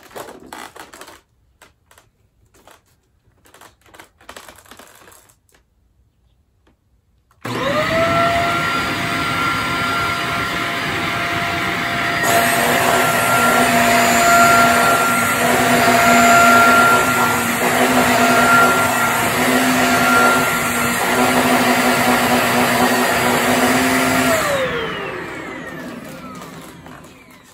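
Shark Rotator NV-series upright vacuum cleaner: a few light handling clicks, then the motor switches on abruptly about a quarter of the way in. It runs with a steady whine while the vacuum is pushed across a rug, then is switched off near the end, its whine falling in pitch as the motor spins down.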